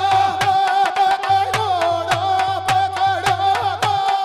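Live nahda folk music: a loud, held melody line that bends in pitch, over a quick, steady drum beat.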